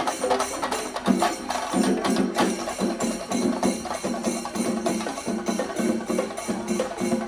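Kerala band melam, a festival brass band with drums, playing a fast rhythmic tune of short repeated notes over quick drum strokes.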